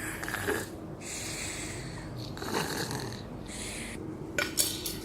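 Slow, breathy snore-like puffs, about four of them, each lasting around a second, then a couple of sharp clicks near the end.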